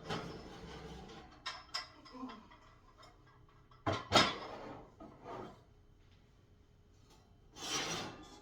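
Cast iron pans being taken out of an oven: metal scraping on the oven rack, with clicks and clunks as the pans are handled and set down, the loudest clunk about four seconds in.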